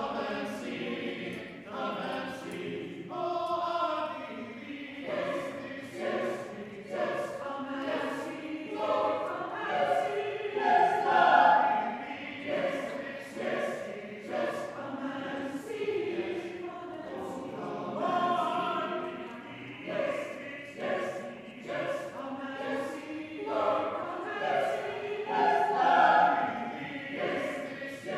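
A choir singing a sacred song, many voices together in sustained phrases.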